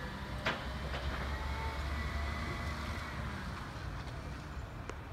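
Recycling garbage truck's diesel engine running as the truck drives away, a low rumble that fades in the second half, with a sharp clank about half a second in and a lighter knock a moment later.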